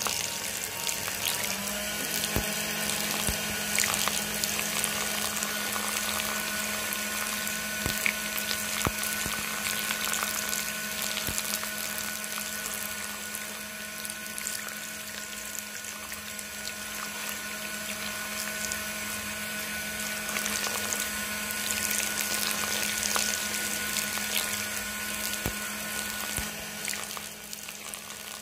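Small electric motor on a toy tractor whining steadily as it drives a rubber-band belt to a miniature water pump, with water splashing out of the pump's spout and running along a channel.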